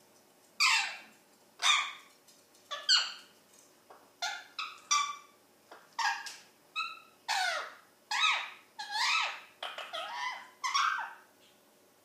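Ringneck parakeet calling loudly, a run of about a dozen short calls that mostly slide down in pitch, some in quick pairs, stopping about a second before the end.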